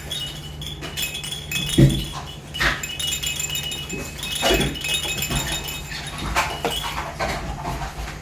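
A baby's high-pitched squeals and vocal sounds, with a few knocks as the board book is handled; the loudest knock comes about two seconds in.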